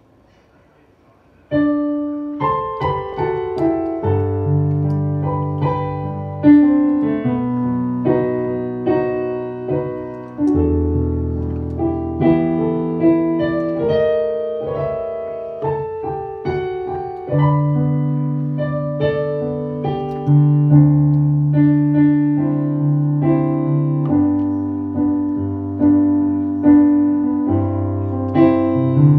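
Digital piano playing a hymn in chords, starting about a second and a half in, each struck chord fading under held bass notes.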